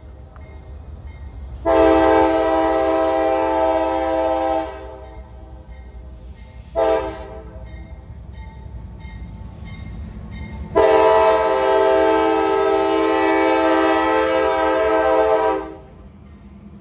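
Freight locomotive's chime horn sounding a long blast, a short blast and a second, longer blast. Together with a long blast just before, this is the long-long-short-long pattern of a grade-crossing signal. The diesel engines rumble underneath as the locomotives approach and pass.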